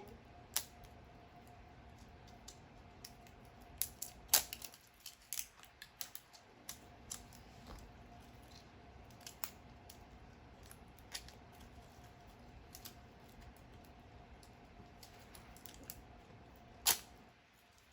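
Small plastic doll pieces and packaging being handled: scattered sharp clicks and light rustles, the loudest about four seconds in and again near the end.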